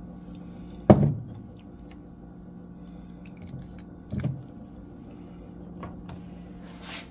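A glass maple syrup bottle is set down on a kitchen countertop: a sharp clunk with a short ring about a second in, then a duller knock about four seconds in. A steady low hum sits under both.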